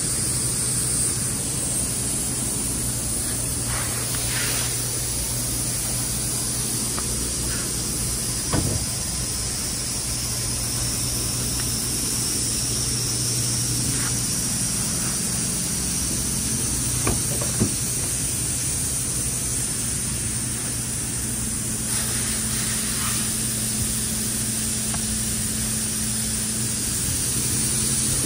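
Steady hissing background noise with a low hum underneath, broken by a few brief knocks about a third and about two-thirds of the way through.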